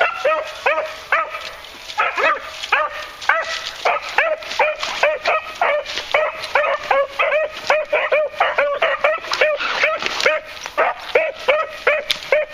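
Beagles giving tongue while running a scent trail: a steady stream of quick, short barks, about two or three a second, each rising and falling in pitch.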